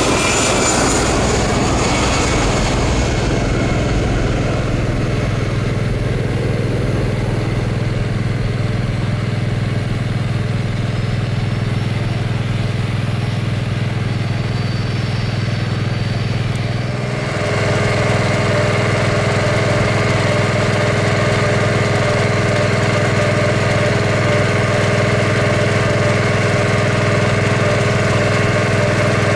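A jet airliner's falling engine whine fades away over the first few seconds, leaving a steady engine drone at idle. About 17 seconds in, the drone picks up a higher, steadier hum.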